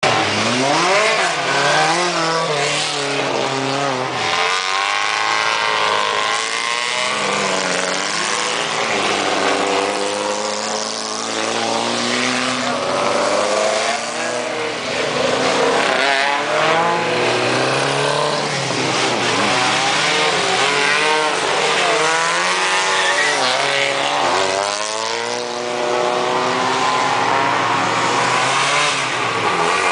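Small-engined rally cars of the under-1600cc class racing past at speed, one after another. Their engines rev hard, and the pitch climbs and drops through gear changes as each car goes by.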